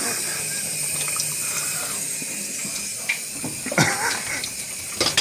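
Water running steadily from the outlet of a homemade heater made from two coffee makers' heating elements, with a few short knocks about three, four and five seconds in. The water is coming through very hot, called boiling hot.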